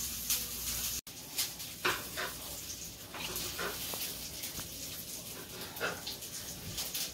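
A baby makes a few short, scattered vocal sounds while eating, with a brief dropout about a second in.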